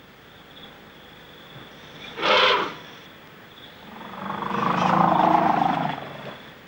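African elephant calling twice: a short, loud trumpet blast about two seconds in, then a longer, deeper call from about four to six seconds.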